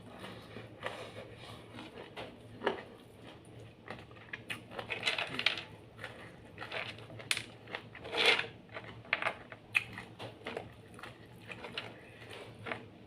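Close-up eating sounds: a person chewing and crunching food, with irregular crunches and mouth clicks, the loudest about eight seconds in.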